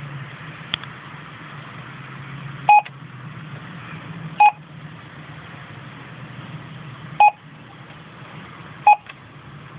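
MYPOL bus on-board computer beeping as its keypad is pressed: four short beeps, each a two-tone note, a second and a half to two and a half seconds apart, over a steady low hum.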